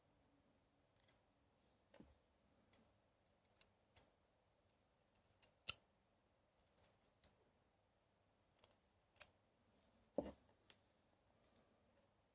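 Scattered small clicks and snips of tools working on the metal parts of a rebuildable tank atomizer, about a dozen in all. The loudest come a little past halfway and about ten seconds in.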